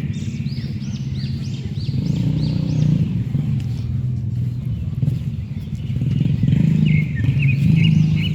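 A vehicle engine running steadily with a low hum, with a series of short high chirps repeating over it.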